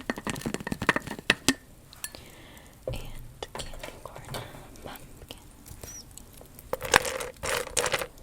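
Candy being rummaged through and tapped by hand, small hard clinks and clicks: a quick run of taps at first, then scattered clicks, and a louder clatter near the end.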